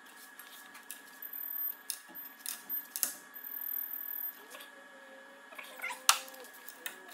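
Ratcheting torque wrench clicking in quick runs as the blade-clamp bolts of a ground-adjustable propeller hub are tightened. Near the end there is a wavering squeak and one sharp, loud click.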